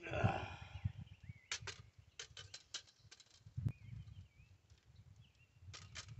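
Handling noise as a man moves to a tripod spotting scope and looks through it: a short rustle, then a scatter of light clicks and scrapes, one sharper click in the middle, with faint bird chirps behind.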